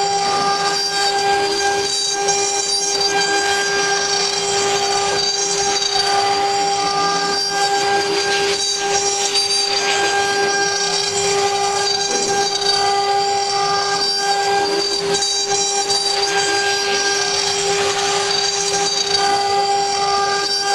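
Woodworking CNC router with a rotary axis at work: its spindle runs with a steady high whine over a constant hiss of cutting.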